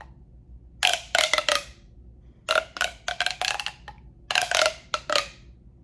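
Quick tapping on a hollow tube in three bursts of about a second each, with the tube's resonance ringing the same few tones in every burst.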